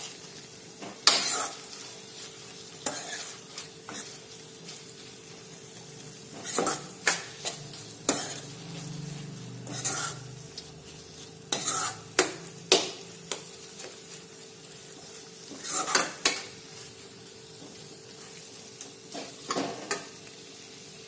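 Steel spoon stirring cluster beans and potatoes in a kadai, with irregular clinks and scrapes against the pan over a steady low sizzle of the vegetables cooking in oil and masala.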